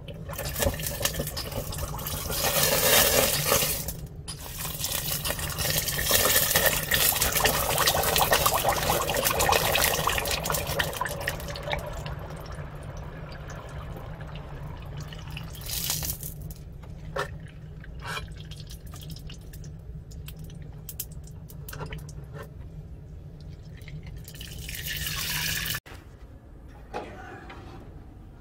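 Red-hot 5160 spring-steel knife blade quenched in oil: loud sizzling and bubbling that slowly eases, with scattered pops, as the blade hardens. Near the end a second burst of hissing cuts off suddenly.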